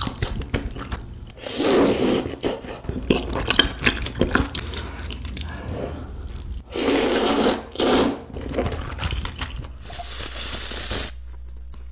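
Close-miked eating sounds: instant noodles slurped hard into the mouth, with two long, loud slurps about two and seven seconds in and wet chewing and lip-smacking clicks between them. Near the end there is another, duller slurp of noodles.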